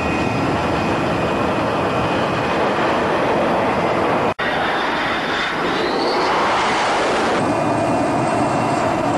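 MiG-29K jet fighter engines running loud and steady. The sound cuts out for an instant about four seconds in. A rising whine comes in after that.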